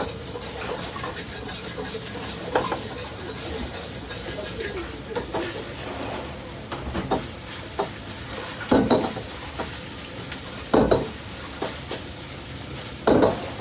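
Fried rice sizzling in a hot wok as a metal ladle stirs and scrapes it, with loud clanks of the ladle against the wok every few seconds.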